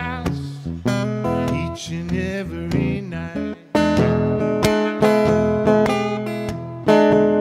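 Acoustic guitar strummed in a blues, with a man's sung line trailing off at the start. After a short break about three and a half seconds in, the strumming comes back louder.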